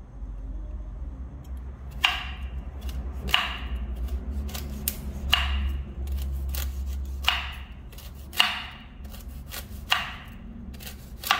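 Knife chopping through noni fruit: about seven sharp chops, a second or two apart, beginning about two seconds in.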